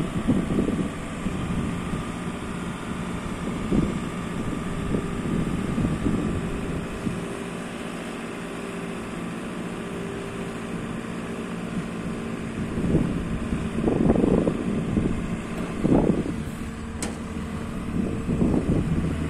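JCB 535-140 telehandler's diesel engine running steadily while its hydraulics raise and extend the telescopic boom. Gusts of wind buffet the microphone now and then, strongest past the middle and near the end.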